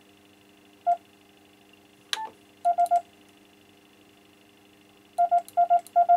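CW sidetone from a Yaesu FTDX-101MP transceiver's monitor: the electronic keyer sending Morse dots as short beeps of one steady pitch. A single dot comes about a second in, a click just after two seconds, then a quick run of three dots, then strings of dots from about five seconds that settle into a steady run of about seven a second. This shows the keyer working once it is switched in.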